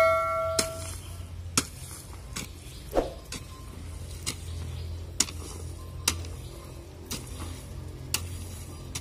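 Hoe blade chopping and scraping into loose soil, a sharp strike about once a second. A ringing chime fades out in the first second.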